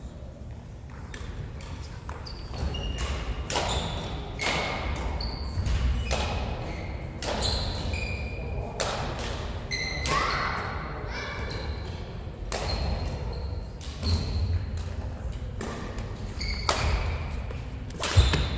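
Badminton play in a large sports hall: a steady run of sharp racket strikes on the shuttlecock, mixed with short high squeaks of court shoes on the floor.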